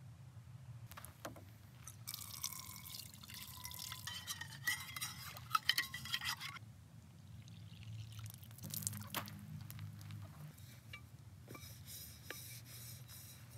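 Water splashing and sloshing in a small saucepan as it is rinsed out by hand, with light clinks against the pot. Near the end the water is poured out of the pot.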